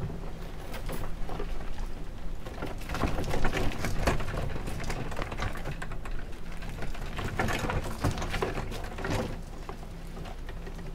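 Irregular crunching and crackling of sandalled footsteps on gravel, with light knocks and rustles of gear being handled on the boat cart.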